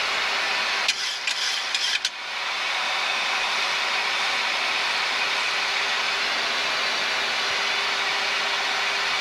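Steady rushing airflow noise in a Boeing 737 cockpit during the descent, with a faint steady hum under it. About a second in comes a quick cluster of clicks and knocks lasting about a second, while the rush briefly drops away.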